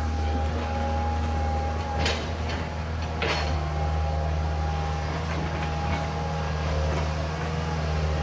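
Diesel engine of a Deere tracked excavator running steadily while it digs out tree stumps, with two sharp knocks about two and three seconds in.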